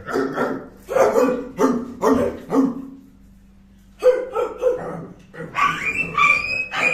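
Barking: about five short barks in the first three seconds, a pause, then more barks about four seconds in, with high whistling tones near the end.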